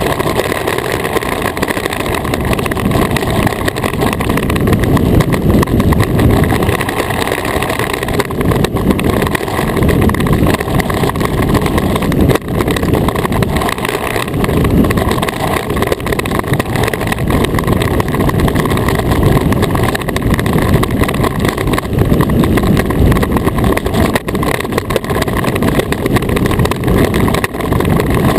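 An iceboat's steel runners sliding over smooth black ice at speed: a loud, continuous rumble that carries up through the hull.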